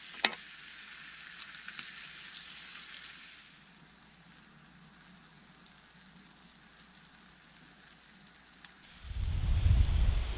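Gammon and eggs sizzling in a cast iron skillet over a small wood stove, with a sharp click just after the start. The frying stops after about three and a half seconds, leaving a faint hush. About nine seconds in, a loud low rumble starts and swells toward the end.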